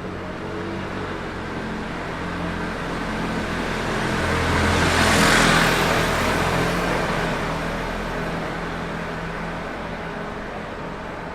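City street traffic: a motor vehicle passes close by, growing to its loudest about five seconds in and then fading, over a steady low engine drone.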